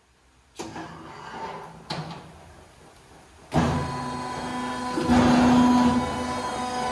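Two knocks, then the Magurit Cutty 052 frozen block cutter starts at the press of its button and runs steadily with a low hum, which grows louder for about a second near the end and then eases.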